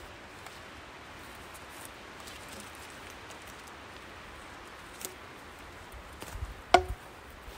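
Bark being stripped from a log with a drawknife: a faint steady outdoor hush with light rustling, a small tick about five seconds in, then one sharp knock with a brief ring near the end.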